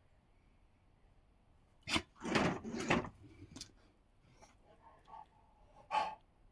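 Newfoundland dogs playing: a sudden knock about two seconds in, followed by about a second of bumping and scuffling, and another short knock near the end.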